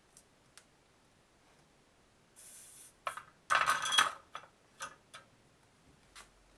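Soldering iron set back into its metal coil stand with a short metallic clatter and ring about three and a half seconds in, just after a brief hiss. Light clicks of the wire and freshly soldered cable lug being handled on the bench come before and after.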